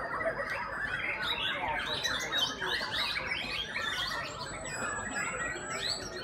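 Many caged white-rumped shamas (murai batu) singing at once in a songbird contest: a dense, unbroken tangle of overlapping whistles and chirps.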